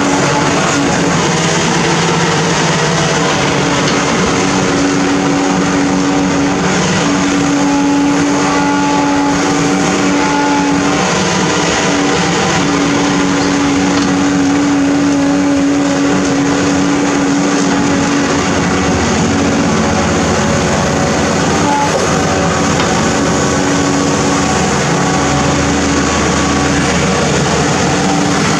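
Amphibious backhoe's diesel engine running steadily under load while the hydraulic arm digs, with a steady hum through it that drops out briefly now and then.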